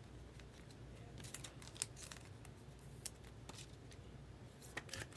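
Faint handling of trading cards: scattered light clicks and slides, a few close together about a second and a half in and again near the end.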